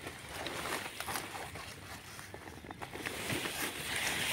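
Leafy weed stems and dry stalks rustling as they are pushed aside by hand, with many small clicks and crackles, growing a little louder near the end.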